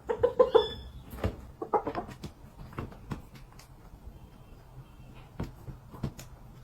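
A rooster's short clucking calls: a quick run of them at the start and another few about two seconds in, followed by scattered clicks and knocks.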